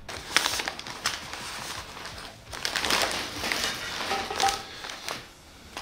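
Clear plastic wrapping crinkling and rustling in uneven bursts as it is handled around a drilled metal fuselage tube.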